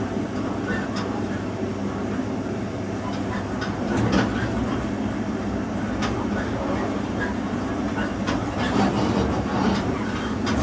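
Train rolling along the track: a steady rumble of wheels on rail, with irregular clicks and knocks as the wheels cross points and rail joints, the sharpest about four seconds in.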